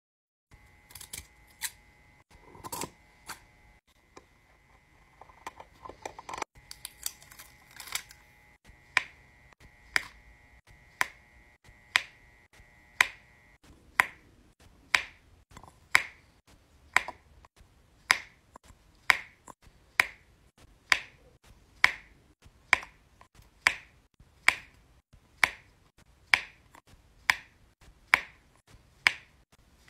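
Diamond painting drill pen pressing round resin drills onto the adhesive canvas, a sharp click with each drill placed. The clicks are irregular at first and fall into an even pace of about one a second from about eight seconds in. A faint steady hum runs under them and stops at about fourteen seconds.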